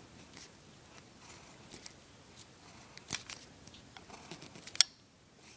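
Pencil sketching on paper: faint, scattered short scratchy strokes, with a sharper click near the end.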